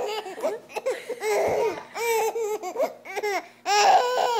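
An eight-month-old baby laughing in repeated short, high-pitched bursts.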